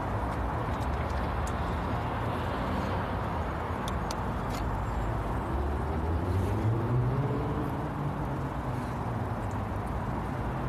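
Steady low background rumble with a few faint clicks, and an engine's hum that rises and then falls in pitch from about six seconds in.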